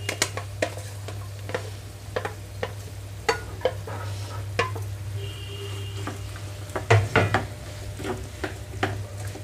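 Diced bottle gourd tumbling from a steel plate into a hot oiled pan of fried onions, with a light sizzle. Scattered taps and knocks come from the plate and a wooden spatula against the pan, and a cluster of louder knocks about seven seconds in as stirring begins.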